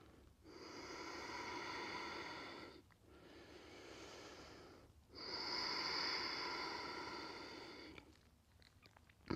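A woman breathing slowly and audibly through a held yoga stretch: three long breaths of two to three seconds each, the first and third louder, then a lull near the end.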